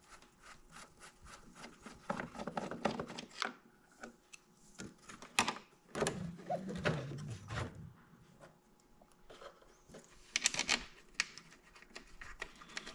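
A screwdriver scraping and prying against the plastic fairing and turn-signal housing of a Honda Goldwing GL1500 to free its retaining clip: a run of small clicks, scrapes and rubbing, with a louder cluster of scraping a little after ten seconds in.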